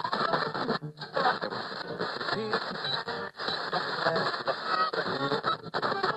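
A radio being tuned across the dial: snatches of music and voices that change and break off in short, sudden dropouts.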